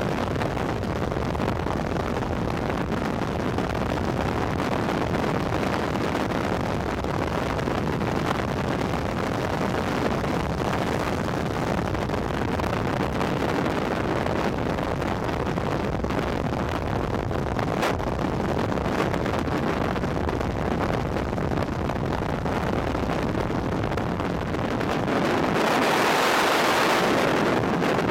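Skydiving freefall wind rushing over a head-mounted camera's microphone, a steady rush of noise. Near the end it turns louder and higher for a few seconds as the parachute deploys.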